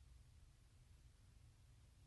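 Near silence: faint steady low hum and hiss of room tone.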